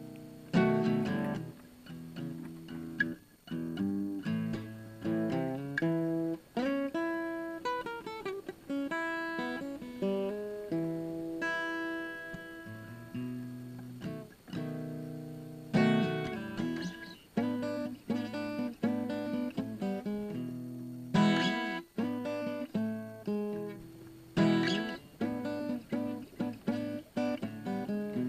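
Background music played on acoustic guitar, plucked notes and strummed chords.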